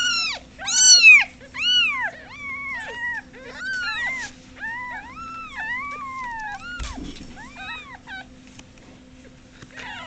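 Kittens meowing over and over, about a dozen short, high-pitched, rising-and-falling meows in quick succession, the loudest about a second in. A soft bump is heard about seven seconds in.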